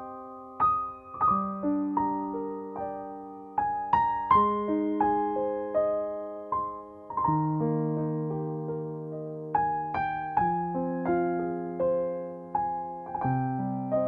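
Background piano music: a slow, gentle piece of chords and broken chords, each note struck and left to ring and fade.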